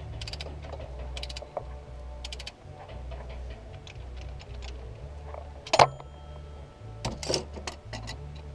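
Ratchet wrench clicking in short bursts at the crankshaft pulley bolt of an Isuzu 6VD1 3.2 V6, with one loud metallic clank just before six seconds in.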